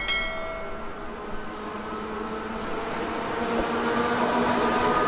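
MÁV class V43 electric locomotive hauling passenger coaches along the platform, its running noise and steady hum growing louder as it draws near.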